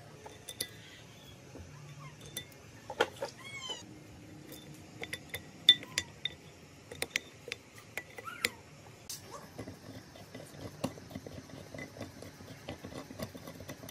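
Scattered light metallic clinks and taps of small four-stroke engine parts being handled and fitted, as the cam gear is set into the aluminium crankcase. A few short high chirps sound in the background a few seconds in.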